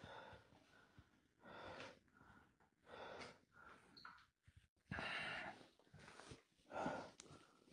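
Faint, heavy breathing of a person close to the microphone, a breath about every second.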